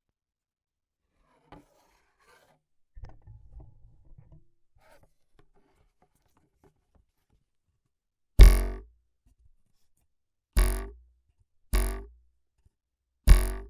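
A stretched wire struck or plucked four times for cartoon sound effects. Each twang rings briefly and bends in pitch, with a low thump. Before them come a few faint scrapes and a short low rattle.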